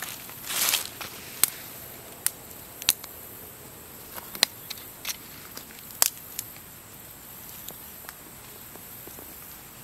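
Dry leaves and small twigs being crumpled and snapped by hand while the tinder is fed: a longer crunch about half a second in, then irregular sharp crackles and snaps every second or so.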